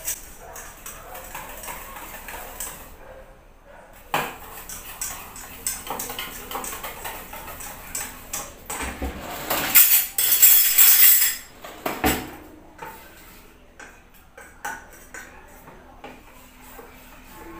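Wire whisk beating wheat-flour dosa batter in a stainless steel bowl: a quick, irregular clinking and scraping of metal on metal. It gets louder and hissier for about a second and a half about ten seconds in.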